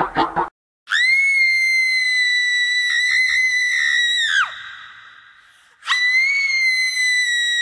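A shrill, high-pitched scream sound effect held for about three and a half seconds, dropping in pitch as it cuts off, then a second scream starting near the end.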